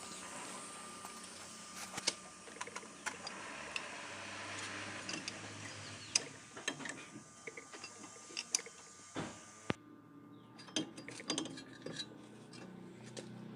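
Scattered light metallic clicks and clinks of hand tools and parts being handled, over a steady hiss that cuts off abruptly about ten seconds in.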